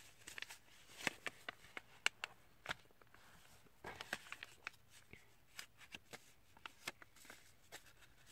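Sheet of paper rustling and crackling as it is folded and creased by hand into a paper airplane: scattered short, crisp clicks at an uneven pace.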